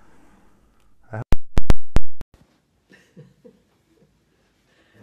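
Handling noise from a smartphone on a small tripod being touched at its microphone: a brief rustle, then five sharp, very loud knocks within about a second.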